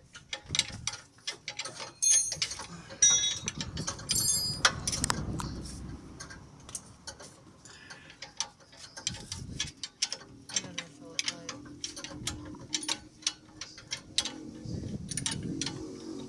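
Mechanic's hand tools working on metal: a run of rapid metallic clicks and clinks, with a few ringing metal strikes between about two and five seconds in.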